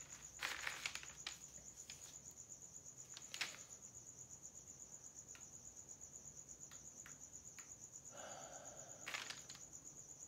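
A cricket chirping in a steady high trill, with a few faint clicks scattered through and a brief rustle about eight seconds in.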